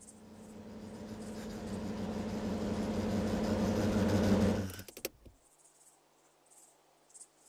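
Propeller plane engine drone growing steadily louder as it approaches, then cutting off abruptly after about four and a half seconds, followed by a few sharp clicks. Faint cricket chirping follows.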